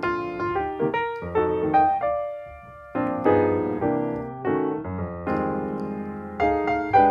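Background music: a piano or electric piano playing a slow melody over chords, each note struck and then fading.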